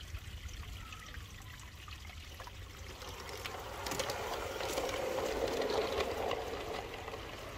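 LGB G-scale Corpet-Louvet 0-6-0 model locomotive and two coaches rolling past on garden-railway track: a rattling, clicking run of wheels and motor that grows louder from about three seconds in as the train passes close, then eases off near the end.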